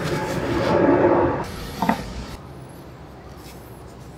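A cloth wiping and rubbing over the body of a Darex No. 8 cabinet scraper plane, drying off cleaning alcohol, for about a second and a half. Then a short knock about two seconds in, followed by quiet handling.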